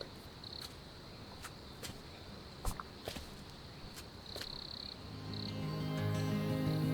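Cricket-like insect trilling at a steady high pitch, swelling in short spells, with scattered crunching footsteps on a dirt trail. From about five seconds in, music fades in and grows louder.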